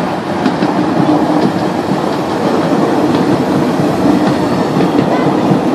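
Miniature train's wheels rumbling along the track, with irregular clicks as the cars roll over the rail joints.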